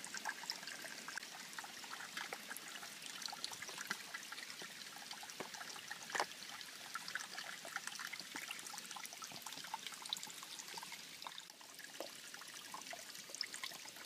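Faint trickling of a creek, with many small scattered clicks and one more distinct click about six seconds in.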